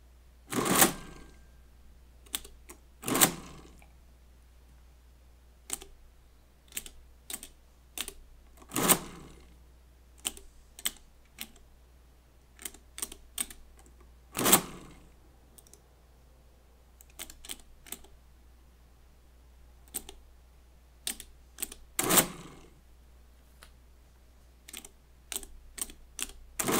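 Friden STW10 electromechanical calculator being operated: keys set with sharp, irregular clicks, and about six louder bursts, each under a second, as the machine cycles and adds into its register.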